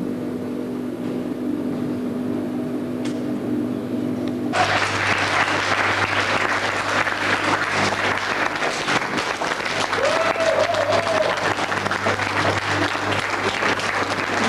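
A steady low hum, then about four and a half seconds in an audience breaks into sustained clapping that continues on. The applause is dense and crackling, with a brief pitched whoop or cheer near the middle.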